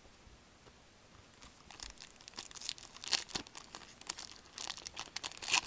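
Foil wrapper of a Contenders hockey card pack crinkling and tearing open in gloved hands: irregular crackles that start about a second and a half in and grow louder towards the end.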